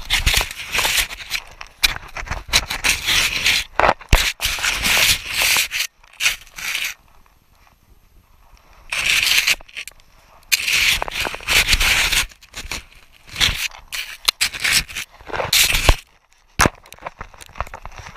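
Snow crunching and scraping right against a GoPro camera, in irregular bursts with a quiet pause of about two seconds around seven seconds in.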